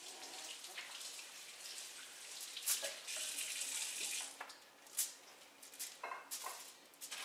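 Water running from a kitchen tap into the sink in short spells, with a few light clicks from handling things on the counter.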